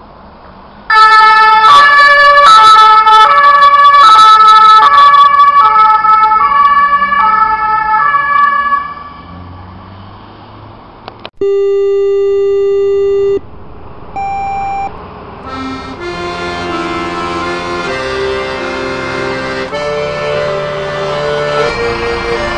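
Ambulance's German two-tone siren (Martinshorn) sounding loud, alternating between a high and a low tone about every two-thirds of a second, then dying away about nine seconds in. A steady held tone for about two seconds and a short one follow, then music.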